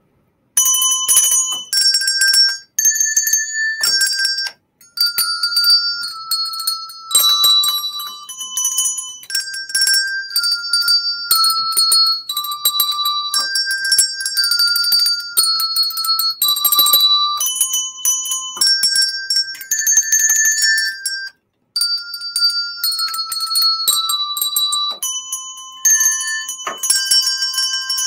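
A set of eight colour-coded diatonic handbells rung one bell at a time to play a simple melody: clear, high ringing notes, one after another at about one a second, each changing pitch up and down the scale, with a few short breaks.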